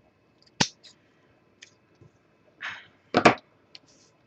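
Tools and craft items being set down and handled on a tabletop: a sharp tap about half a second in, a short rustle of noise, then a louder double knock a little past three seconds.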